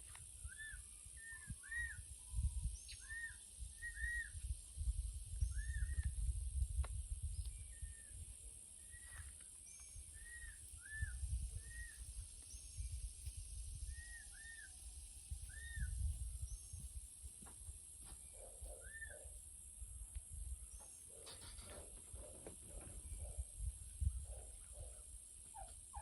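Peacock chick peeping repeatedly: short rising-and-falling peeps, about one or two a second, over a low rumble. The peeps stop about three-quarters of the way through.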